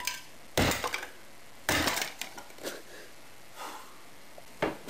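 A metal bat smashing a pile of broken plastic electronics, about five blows roughly a second apart, each with a crunch and a clatter of shattered pieces.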